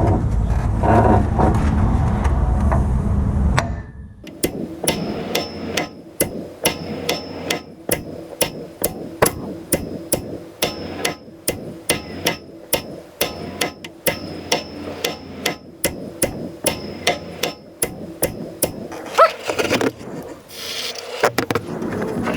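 A steady run of hammer blows, about two a second, driving a harmonic balancer onto the crankshaft of a Ford 302 V8, each strike with a faint metallic ring. The first few seconds hold a loud low rumble before the blows begin.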